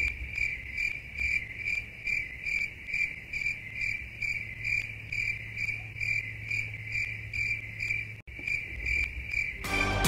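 Cricket chirping sound effect: an even run of short, high chirps, about three a second, with a brief gap near the end. It is the stock 'crickets' cue for an empty room.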